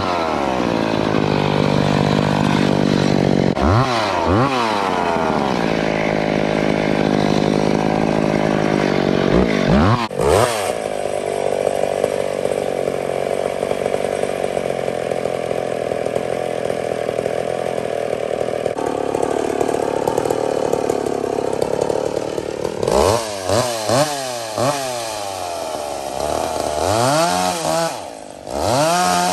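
McCulloch 850 two-stroke chainsaw revved up and down a few times, then held under load through a long steady cut into a log for about twelve seconds, with the pitch dropping a little partway through. Near the end it is blipped up and down several times in quick succession.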